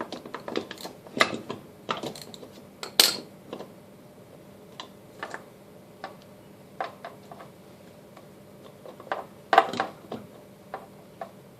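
Scattered metal clicks and clinks of a hub puller's arms being set into the notches of a loosened wheel and snugged up. There is a loud clink about three seconds in and another cluster near the end.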